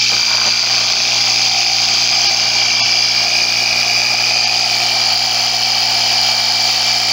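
Small 12-volt DC air-compressor motor of a DieHard 1150 jump pack running steadily and driving the piston through its gear train, pumping air, its broken gear tooth filed down. A steady hum with a high whine over it.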